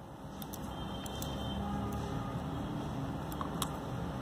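A few faint, scattered clicks of knitting needles being handled while stitches are picked up, over a steady low background rumble.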